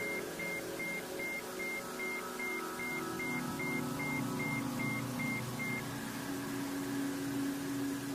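Synthesized meditation drone of layered, held low tones, with a short high beep pulsing about three times a second. The beeping stops about six seconds in, and a single low tone swells toward the end.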